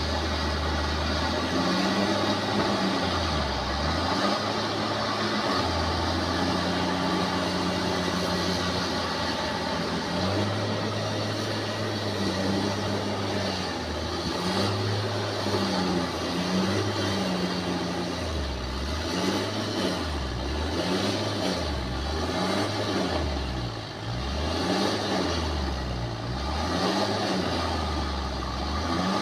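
Bulldozer's diesel engine running hard, its note repeatedly dropping and rising again, with quick dips about once a second in the last ten seconds.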